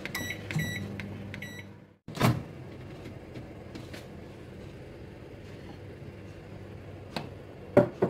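Microwave oven beeping a few short times as its timer runs out at zero, over the low hum of the oven, then the sharp clack of the door being opened about two seconds in. Near the end come a couple of knocks as the ceramic mug is taken out, the last one the loudest.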